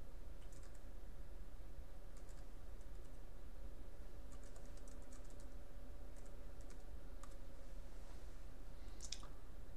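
Computer keyboard keys clicking in short, scattered runs over a steady low electrical hum.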